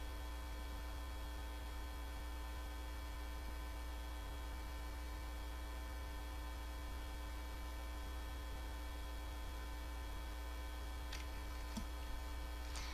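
Steady electrical mains hum, a low buzz made of many even tones, with two faint clicks near the end.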